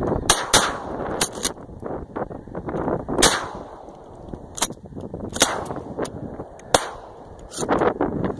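Shotgun shots, about eight in uneven succession, some barely a third of a second apart. The loudest come in the first second and a half, with the rest spread out and a little fainter.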